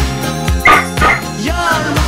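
Pop music with a steady beat, with a small dog yipping a few times over it.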